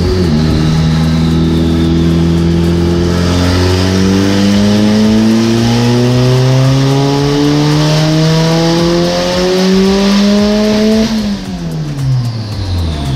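Turbocharged Honda four-cylinder engine under load, its revs climbing steadily in one long unbroken pull for about eleven seconds. Near the end the throttle closes and the revs fall away.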